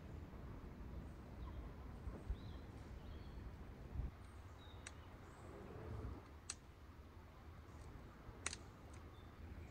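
Faint outdoor ambience: a low steady rumble with a few faint, short bird chirps, and three sharp clicks, the first about halfway through and two more near the end.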